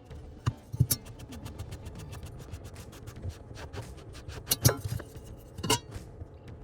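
Small metal clicks and knocks of tools and parts being handled, with a few sharper snaps.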